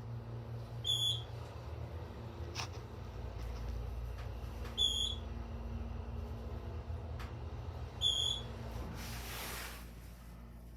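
KONE hydraulic elevator in travel: a steady low hum from the running hydraulic pump, with three short high beeps from the car about three and a half seconds apart. Near the end the hum eases off as the car stops.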